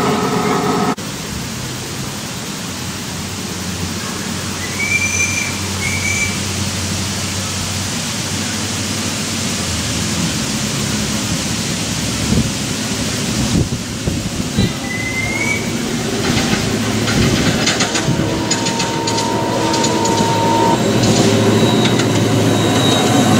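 Sound-fitted ride-on model of a KiwiRail DFB diesel locomotive, its speaker playing a diesel engine sound, loud for about a second at the start and building again over the last several seconds as the train comes closer, with clicks and rattles from the track. A bird chirps a few times in between over a steady background hiss.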